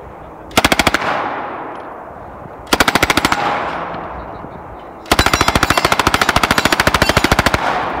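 Lage MAX-41A submachine gun, a working replica of the M41A pulse rifle, firing full-auto at a very fast rate. It fires three bursts: a short one about half a second in, another around three seconds in, and a long burst of about two and a half seconds starting about five seconds in. Each burst is followed by a fading echo.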